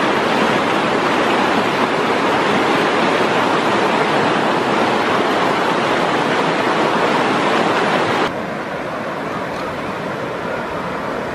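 River water rushing over rocks in shallow rapids, a loud steady rush. About eight seconds in it drops suddenly to a softer, more distant flow.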